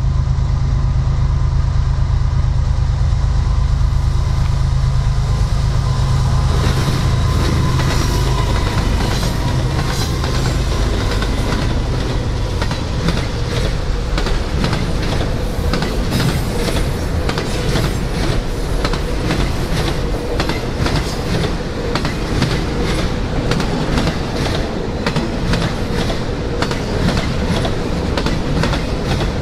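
Freight train of autorack cars rolling past on jointed track. A deep rumble builds over the first several seconds, then from about seven seconds in the wheels set up a steady, rapid clickety-clack over the rail joints on top of a continuous rumble.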